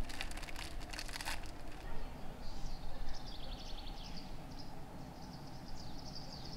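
Small birds chirping and trilling, high and thin, from about two and a half seconds in, over a steady low outdoor rumble. A crackling rustle fills the first second and a half.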